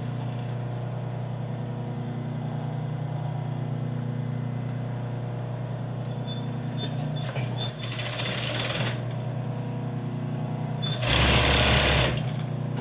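Industrial sewing machine with a steady motor hum. It stitches in short runs: one about eight seconds in and a louder, longer one near the end.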